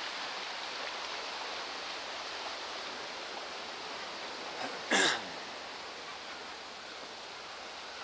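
Sea surf washing and churning over shoreline rocks, a steady rushing hiss. About five seconds in there is one brief, much louder burst.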